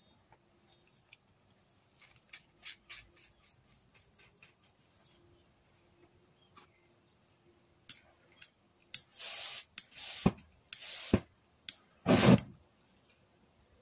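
Faint bird chirps in the first half, followed by a few sharp clicks and three loud hissing, rustling bursts in the second half, the last one the loudest.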